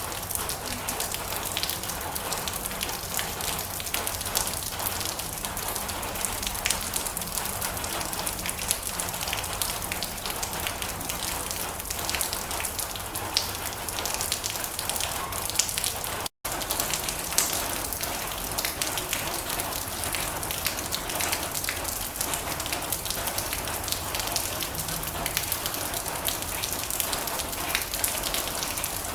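Heavy rain drumming on a metal roof: a steady hiss thick with individual drops ticking on the sheet metal. The sound cuts out for an instant about halfway through.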